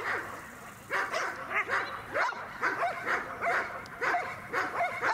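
A dog barking over and over in quick runs, about two to three barks a second.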